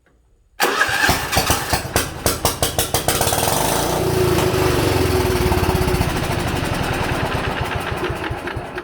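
Old Sears 10/6 lawn tractor's engine catching suddenly with a burst of uneven firing, then running loud and steady for several seconds before starting to fade near the end. It is running briefly on starting fluid, because no fuel is reaching it.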